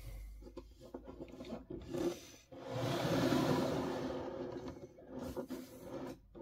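Rubbing and scraping handling noise with a few light knocks, and a longer, louder stretch of rubbing in the middle, as a model set is manoeuvred into place by hand.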